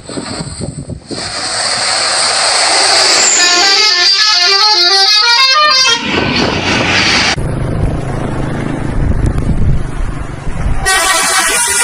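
Indonesian bus 'telolet' musical horn: several horn tones play a quick stepping tune for about three seconds. The sound then changes abruptly to a low engine rumble, and a shorter burst of horn tones comes near the end.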